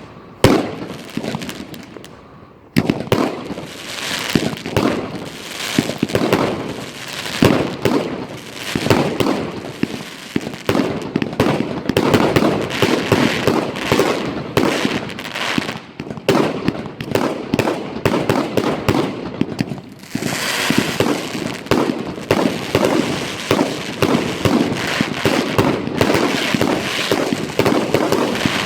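Evolution Fireworks 'Spectacle Show 100' firework battery firing: a rapid, near-continuous string of launches, bangs and crackle. It dies down briefly about two seconds in, then starts again suddenly.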